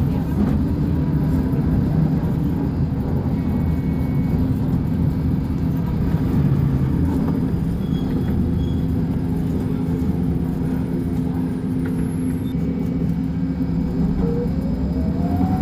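Diesel engine of a Volkswagen 17-280 OT bus running steadily. A thin rising whine starts about a second before the end.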